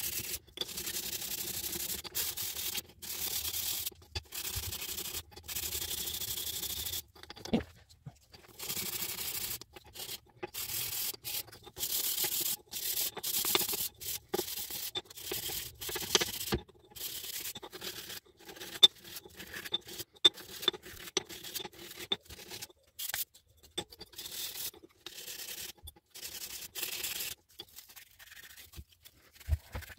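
Hand sanding small mahogany pieces with folded sandpaper: a run of short back-and-forth rubbing strokes with brief pauses, and now and then a light click or knock as a piece is handled.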